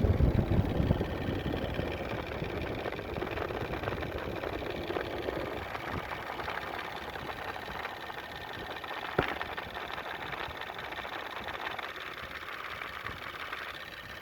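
Toyota 4Runner's 3.4-litre 5VZ-FE V6 idling with a rapid ticking that makes it sound like a diesel. A single sharp click about nine seconds in.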